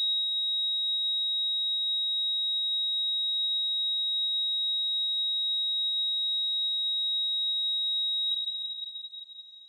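A steady high-pitched pure tone, held at one pitch, that fades out near the end.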